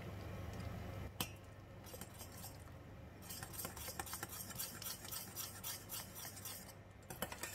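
A spoon stirring thick chili sauce in a stainless steel saucepan. There is a single clack against the pot about a second in, then quick, repeated scraping strokes, several a second, from about three seconds in to near the end.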